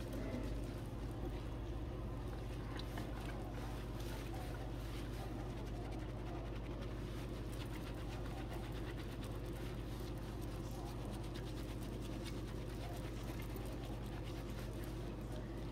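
Fingers scrubbing shampoo lather through wet hair at a salon shampoo bowl: a continuous squishy, crackling sound of bubbles and hair, over a steady low hum.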